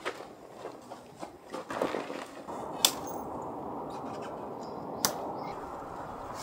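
Rustling and light knocks of tent fabric and bedding being handled, then a steady rushing noise from about two and a half seconds in, broken by two sharp clicks.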